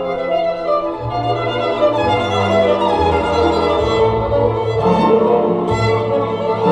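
Recorded violin music with sustained low accompanying notes, played back through Børresen Z2 Cryo Edition loudspeakers driven by an Aavik I-880 integrated amplifier.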